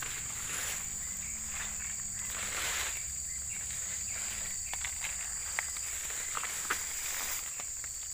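Footsteps and leaves brushing against legs as someone walks through dense undergrowth, with a few sharp twig-like snaps about halfway through. A steady high-pitched insect drone runs underneath.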